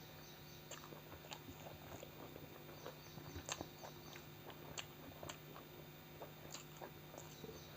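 Close-miked eating sounds: a person chewing a meal of chicken curry and rice, with scattered wet smacks and mouth clicks over a faint steady hum.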